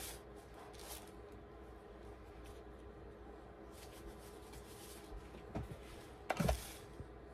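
Faint steady hum as a paint-covered coaster tile spins on a pour-art spinner turntable, with two short knocks near the end, the second the louder.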